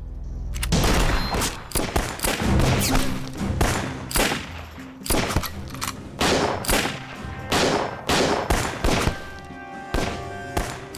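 A gunfight breaks out under a second in: irregular rifle and pistol shots, about two or three a second, over dramatic background music.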